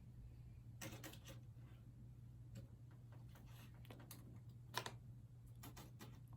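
Faint, scattered small clicks of metal paperclips being handled, in a few short clusters: about a second in, around five seconds and near the end.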